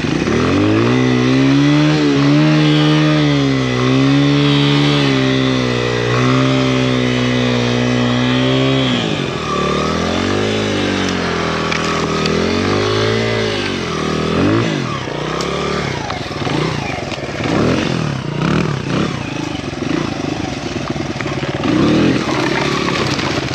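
Honda XR100's small single-cylinder four-stroke engine working hard as the dirt bike is ridden through snow. It holds fairly steady revs for about nine seconds, then rises and falls with repeated bursts of throttle, getting choppier toward the end.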